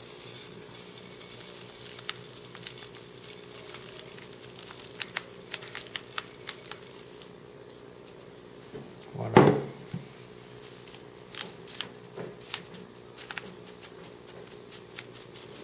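Fine potting substrate of perlite and small granules sprinkled by hand into a plastic cup: many light ticks and patters of falling grains, with one louder bump about nine seconds in.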